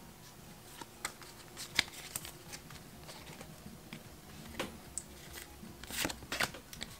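Pokémon trading cards handled in the hand as they are flipped through: light scattered clicks and slides of card against card, one sharper snap about two seconds in and a busier flurry near the end.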